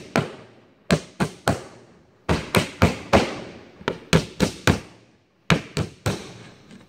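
Claw hammer driving tacks into new wooden planking on a wood-and-canvas canoe hull: sharp taps in quick runs of three to five, with short pauses between runs.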